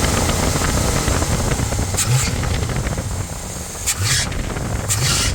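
Oldsmobile 425 Rocket V8 running, a steady low engine sound, with three short hissing bursts about two, four and five seconds in.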